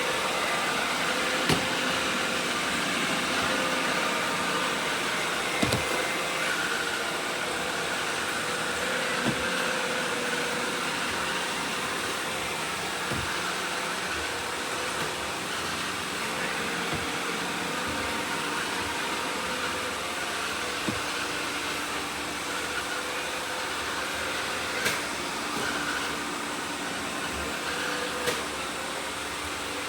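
Several robot vacuums running at once: a steady whir of motors and brushes, with short knocks here and there.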